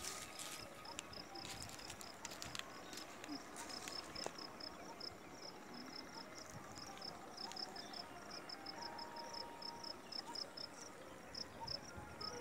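Faint insect chirping: a long, steady series of short high chirps, several a second, over quiet open-air background, with a few light clicks in the first second.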